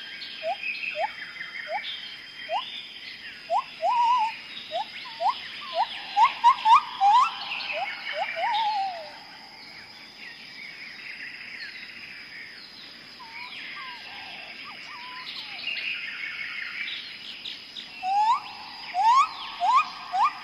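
Tropical jungle ambience: a bird gives bouts of quick rising whistled notes, about two a second, over a dense chorus of other birds calling. The whistling stops about halfway through and starts again near the end. A steady high-pitched insect drone runs underneath.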